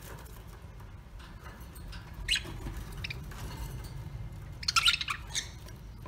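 Caged budgerigars giving short, sharp squawks and chirps: single calls about two and three seconds in, then a quick burst of calls near the end, over a low steady rumble.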